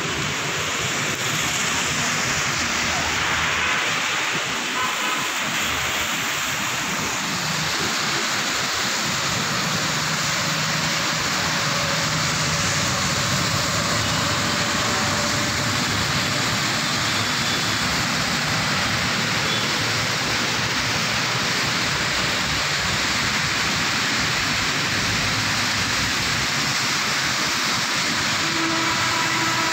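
Heavy rain pouring on a flooded road, with vehicle tyres swishing through the standing water: a steady, even hiss.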